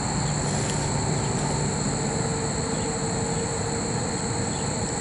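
A steady machine-like rumble and hum with constant high-pitched insect trilling, and a few faint ticks.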